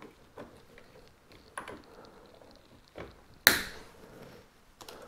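Side cutters handled and snipping zip-tie tails: a few light clicks and knocks, then one sharp snap about three and a half seconds in.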